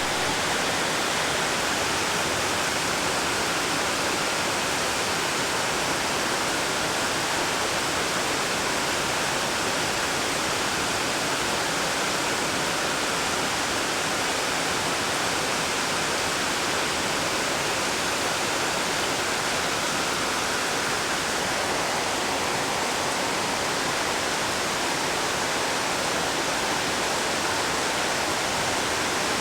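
Heavy rain falling steadily, a dense even hiss without thunder.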